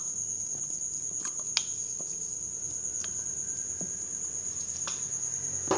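A cricket trilling steadily, one high unbroken note, with a few faint light clicks.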